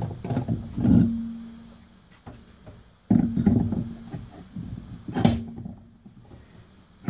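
Direct-drive e-bike hub motor's stator and cover plate being flipped over and handled on a wooden workbench: irregular metal knocks and scrapes, some followed by a brief low ringing tone, and a sharp click about five seconds in.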